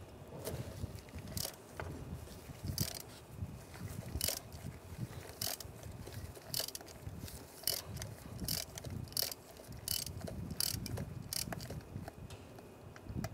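Ratchet turning a 5/8-inch spark plug socket to unscrew an old spark plug from the engine. Sharp ratchet clicks come in repeated strokes, about one a second and a little quicker later on, with a low rumbling between them.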